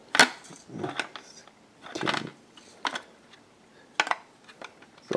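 Handling noise from a partly disassembled DVD drive: sharp clicks and short scrapes of its plastic casing and parts being moved by hand, about five separate sounds with pauses between.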